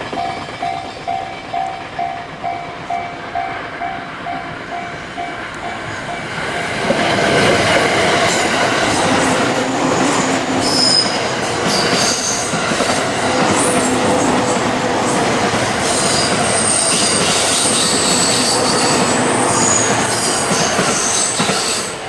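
A level-crossing bell rings about twice a second while the last container wagons of a freight train roll by. From about seven seconds a green-and-orange-striped JR commuter electric train passes close, a loud steady rush of wheels on rail with high wheel squeals through it.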